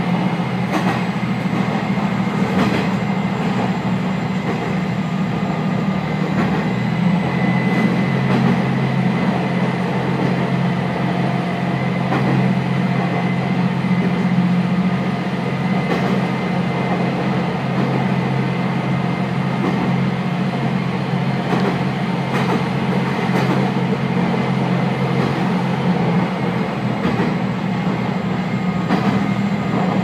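Diesel railcar (a JR West KiHa 120) running at steady speed through a single-track tunnel, heard from inside the car. Its engine gives a steady low drone under the rumble of wheels on rail, with a faint high whine and a few scattered wheel clicks.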